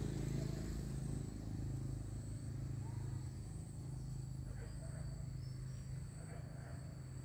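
A low, steady engine hum that slowly fades, with insects making two steady high-pitched tones over it.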